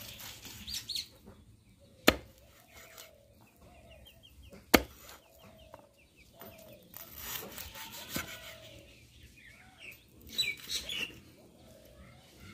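Three sharp chops, a few seconds apart, of a knife cutting cooked pork ribs into small pieces on a board, with faint animal calls in the background.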